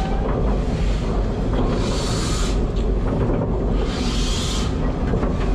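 Steam locomotive moving slowly, with a burst of steam hiss about every two seconds over a steady low rumble.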